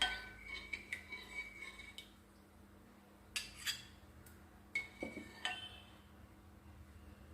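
Kitchen utensils clinking against a cooking pot and a cup as the cornflour mixture is added to the soup: a cluster of light clinks with brief ringing at the start, then a few separate clinks.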